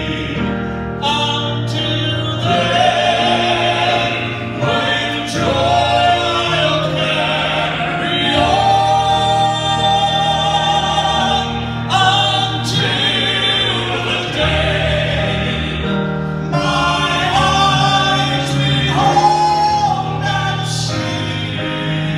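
Men's gospel quartet singing in harmony into handheld microphones.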